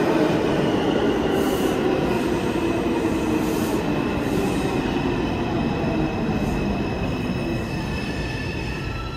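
New York City subway train moving through the station, steel wheels squealing on the rails in steady high-pitched tones over the rumble of the cars, the whole slowly growing quieter.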